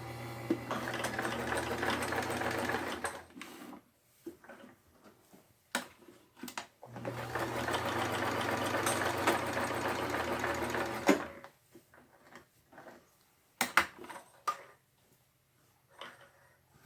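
Vintage Kenmore sewing machine running, stitching zigzag, in two runs of about three and four seconds. Sharp clicks and handling noises come between the runs and after them.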